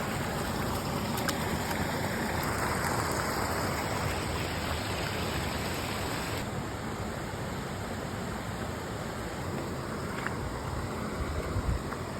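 River water flowing, a steady rushing hiss, with one sharp click about a second in.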